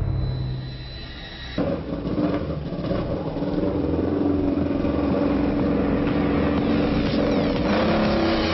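A motor vehicle engine running as a dense rumble with a steady drone, starting suddenly about a second and a half in, with gliding tones near the end.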